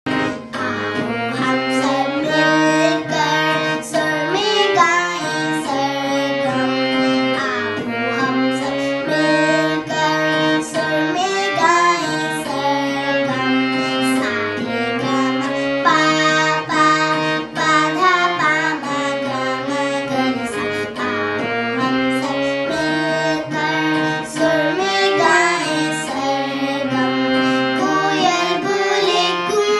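A young girl singing a sargam poem in Indian classical style, her voice gliding between held sol-fa notes. Behind her runs instrumental accompaniment: a steady held drone and a regular percussion beat.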